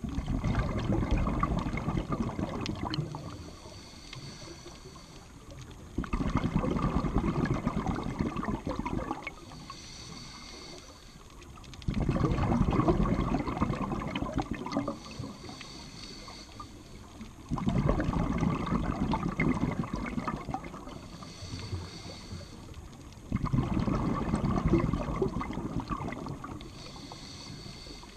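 Scuba breathing heard underwater: exhaled bubbles from a regulator burble in five bursts, each about three seconds long and about six seconds apart. Between them the inhalations through the regulator are quieter, with a faint high hiss.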